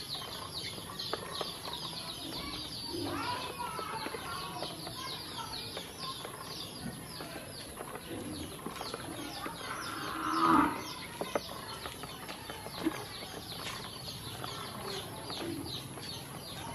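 A group of yellow ducklings peeping continuously, a rapid stream of short, high, falling peeps. About two-thirds of the way through, one louder, lower animal call lasts about a second.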